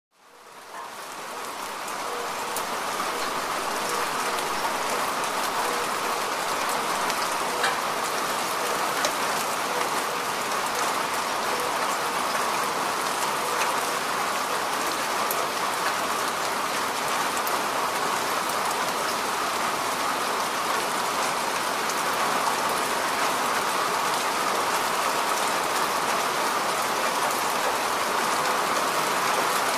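Heavy rain falling steadily, fading in over the first couple of seconds, with the odd sharper drop ticking out of the hiss.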